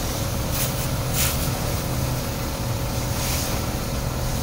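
Pressure washer running with a steady low hum from its motor and pump, while the water jet hisses against the car body. The hiss swells briefly a few times as the spray sweeps across.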